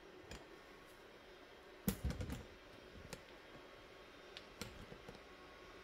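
Scattered light clicks of equipment being handled on a workbench, with a short cluster of louder knocks about two seconds in.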